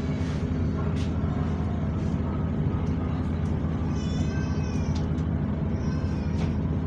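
Bus engine idling at a stop with its cooling fan running, a steady low drone. A brief high wavering sound comes about four seconds in and again near six seconds.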